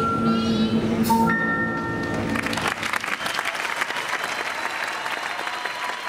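The music's last held chord dies away about two and a half seconds in, and the audience breaks into loud, sustained applause.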